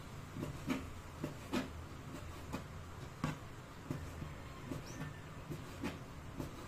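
Kitchen knife dicing raw chicken breast on a plastic cutting board: irregular light knocks of the blade against the board, roughly one or two a second.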